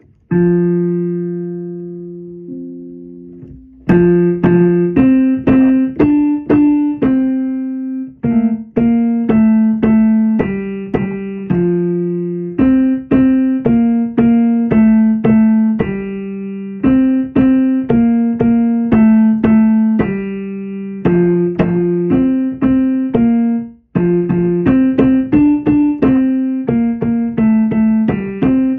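Electric keyboard played on its piano voice: a chord held for a few seconds, then a quick melody of short, repeated notes in phrases with brief pauses between them.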